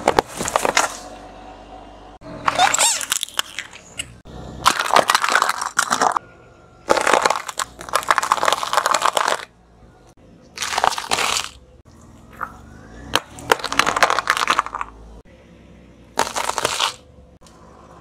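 A car tyre rolling over and crushing a series of small objects, each pass a separate burst of cracking and crunching lasting a second or two, several in turn with quieter gaps between.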